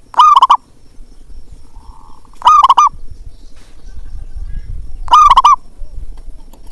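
Zebra dove (perkutut) calling three times, each a short, quick rolling phrase of coo notes, about two and a half seconds apart.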